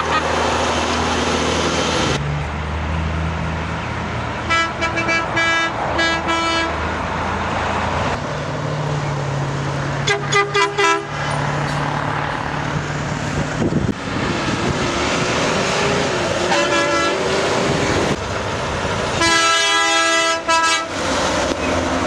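Trucks passing with their diesel engines running, sounding air horns: a string of short blasts about four and a half seconds in, another burst about ten seconds in, a brief faint one near seventeen seconds, and a long, loud blast near the end.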